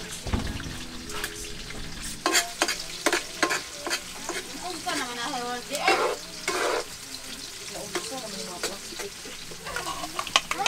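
Chopped onions and vegetables sizzling in a wok, with a metal spatula scraping and stirring against the pan in repeated strokes.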